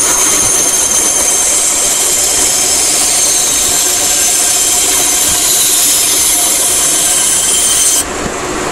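Benchtop band saw running and cutting through a small turned wooden chess piece: a steady, high-pitched cutting noise. Near the end the high part drops away suddenly as the blade comes through and the piece is parted off, and the saw keeps running more quietly.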